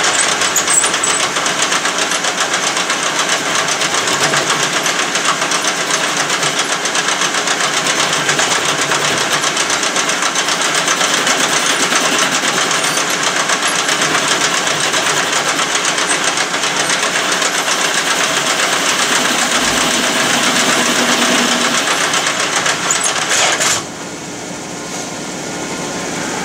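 Metal lathe running with the cutting tool facing the end of a pipe sleeve square: a loud, steady machining noise. Near the end the cutting noise stops abruptly, leaving a quieter steady hum of the machine.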